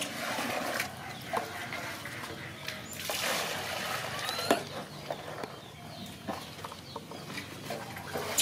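Water pouring and splashing into plastic tubs: a stream from a bottle into a red plastic tub near the start, then a second pour from a plastic pitcher into a plastic basin about three seconds in.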